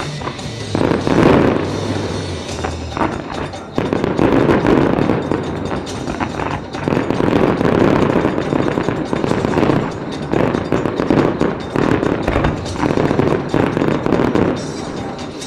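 Starmine fireworks barrage: a fast, almost unbroken run of shells and bursts popping, banging and crackling, with the loudest peaks about a second in and about four seconds in. Music plays along with the bursts.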